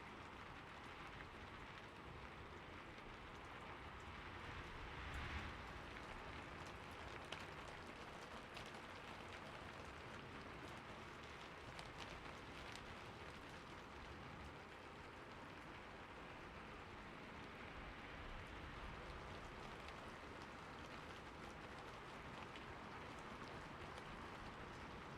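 Steady rain falling, an even hiss with scattered individual drops ticking on a surface. It swells briefly louder about five seconds in.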